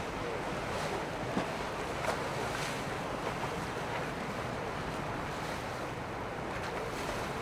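Steady rushing noise of moving water and wind buffeting the microphone, with a few faint ticks.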